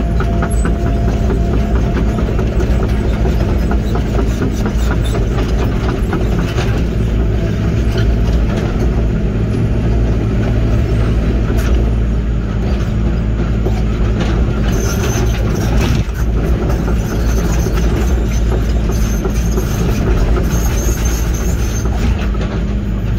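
Link-Belt 145 tracked excavator's diesel engine running steadily as the machine travels, with scattered clanks and rattles from its undercarriage.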